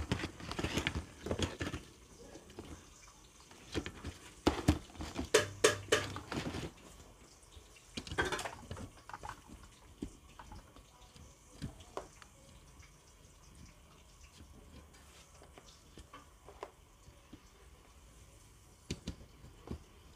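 Clicks and clatter of a screwdriver working on screws inside an open plastic power outlet strip. They come in quick bunches for the first half, then thin out to scattered single ticks.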